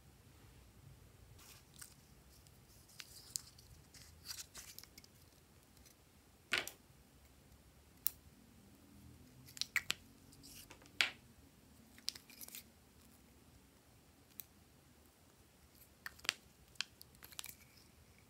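Scattered sharp snips and clicks of metal scissors cutting pieces off a lipstick, with light taps and rustles of small tubes and tools being handled. A handful of louder snaps stand out, about six and a half, ten, eleven and sixteen seconds in.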